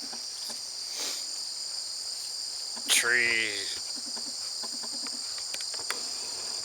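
Steady, high-pitched chorus of insects chirring in the background.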